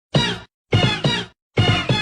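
Comedic editing sound effect: a string of short, bright notes, each sliding down in pitch, with gaps between them. The notes come faster near the end.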